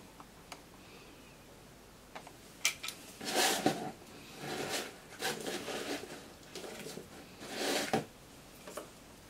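OCB Mikromatik 2 electric cigarette-tube filling machine working through its filling cycle: a few sharp clicks, then five short mechanical runs of half a second to a second each, stopping about eight seconds in.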